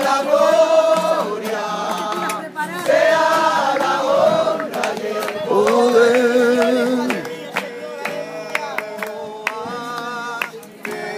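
A group of people singing a Spanish worship chorus together, holding long notes with a wavering pitch. The singing drops quieter about seven seconds in, with a few light clicks.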